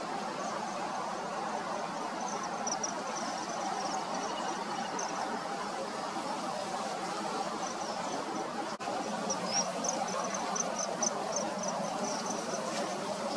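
Outdoor wetland ambience: a steady low hum with two runs of rapid, high-pitched chirping, one near the start and one in the second half, and a single sharp click a little past the middle.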